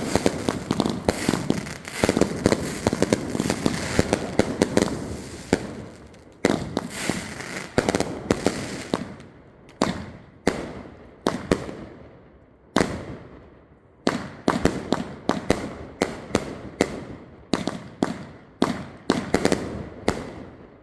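Fireworks going off. For the first six seconds or so there is a dense barrage of crackling and bangs, then a run of separate sharp bangs, about one or two a second, each trailing off quickly.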